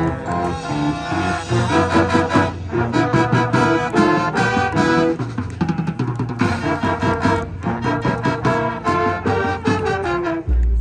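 Marching band playing: massed brass carrying the melody over a steady percussion beat.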